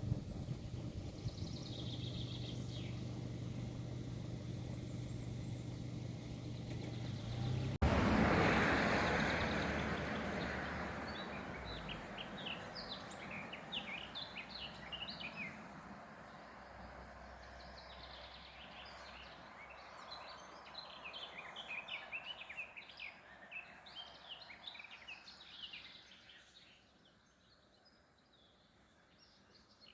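A low, steady engine-like hum cuts off abruptly about eight seconds in and gives way to a loud rush of noise that dies away over several seconds. Then small birds chirp and twitter quickly in the background, fading out near the end.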